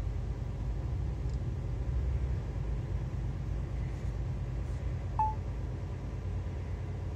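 Steady low rumble of a lorry's engine and road noise heard inside the cab while driving, with a single short electronic beep about five seconds in.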